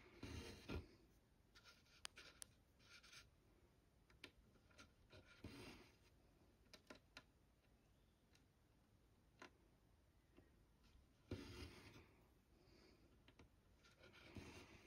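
Faint rasp of cross-stitch thread being drawn through the fabric, about four pulls, with small clicks of the needle in between.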